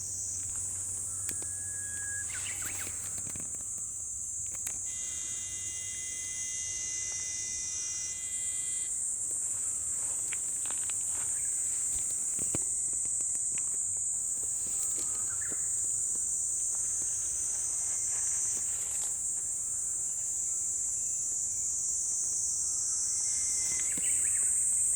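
A continuous high-pitched drone of insects calling in summer, shifting slightly in pitch now and then. A few short chirps and a held tone lasting about four seconds come through partway in.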